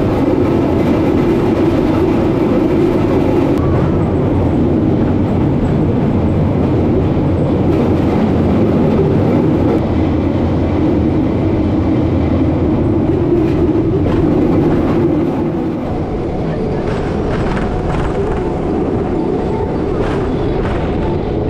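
Steel wheels of a rail bike rolling along the track through a tunnel: a loud, steady rumble that eases a little after about fifteen seconds, with scattered clicks in the later part.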